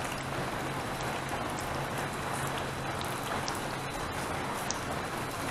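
Steady patter of rain with scattered small drop ticks, over a faint low hum.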